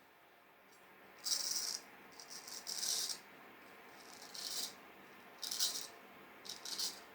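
Handling noise: about five short, irregularly spaced bursts of light, hissy rattling or rustling, with quiet between them.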